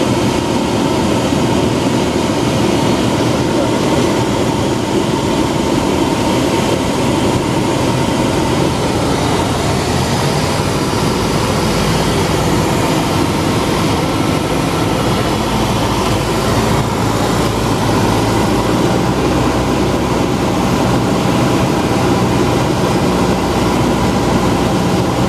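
Cessna 172 Skyhawk's piston engine and propeller droning steadily, heard from inside the cabin, with a broad rushing hiss of airflow over the airframe.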